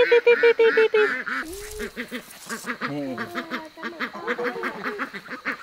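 A flock of ducks and ducklings calling: a loud, fast run of repeated quacks in the first second, then many overlapping softer quacks and high peeps.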